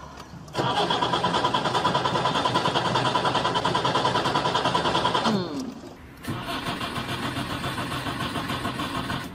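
An old car's starter motor cranks the engine in a fast, even rhythm of about six turns a second, winding down with a falling whine after about five seconds. A second, shorter cranking run follows, and the engine does not start.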